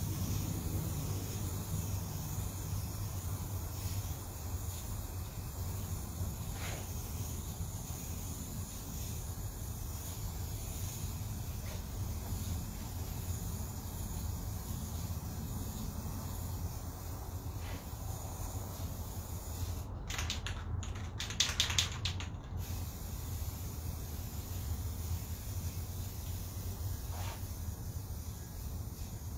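Aerosol spray-paint can hissing in short bursts, with a cluster of several quick, louder sprays about two-thirds of the way through and fainter single sprays now and then, over a steady low hum.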